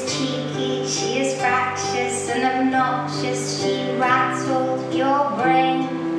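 A song with guitar accompaniment and a woman singing.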